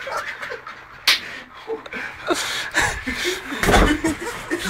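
A sharp slap about a second in and a heavy thump a little before the end, amid indistinct voices.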